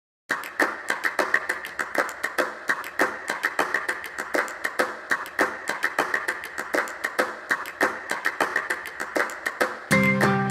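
Rapid, irregular clicking, several sharp clicks a second. Near the end the clicking gives way to strummed acoustic guitar music.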